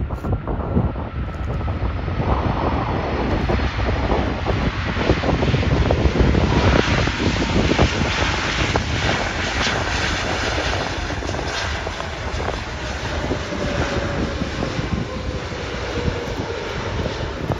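Airbus Beluga XL's Rolls-Royce Trent 700 turbofan engines running during the landing rollout: a steady loud rush with a whine that falls slowly in pitch as the jet slows and passes.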